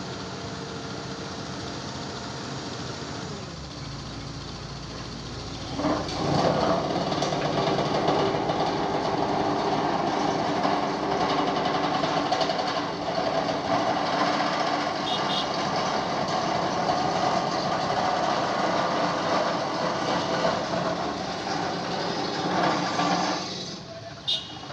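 Diesel engine of a hydraulic pile-driving rig running, growing much louder about six seconds in and staying loud.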